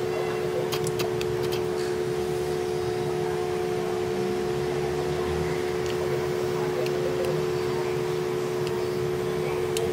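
A steady electrical or mechanical hum of unchanging pitch over a low noise bed, with a few light clicks about a second in and again near the end.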